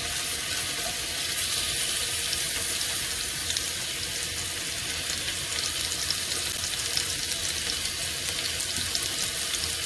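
Pieces of beef sizzling in hot oil in a heavy pan: a steady hiss with scattered small crackles, the sound of oil hot enough to brown the meat.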